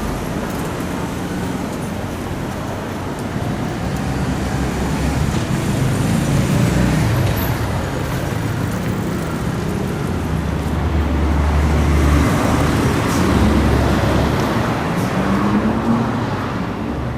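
Busy road traffic passing steadily: cars and heavy vehicles such as buses and trucks. Near the end, engines rise in pitch as vehicles speed up and pull away.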